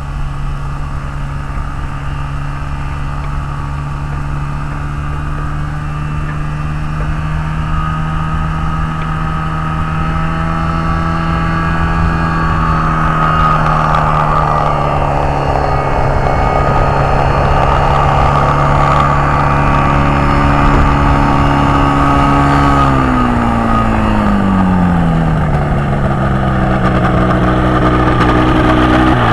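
Powered parachute's Rotax 447 two-stroke twin engine and propeller running steadily, growing louder as the craft comes closer. Its pitch drops over the last several seconds as it passes close by.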